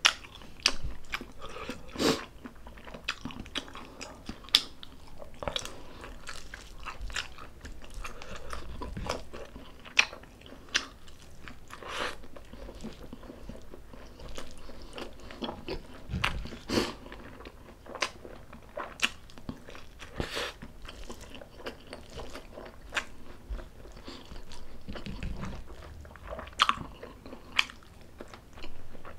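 Close-miked eating sounds: a person chewing with wet mouth clicks and smacks, broken by irregular sharper bites.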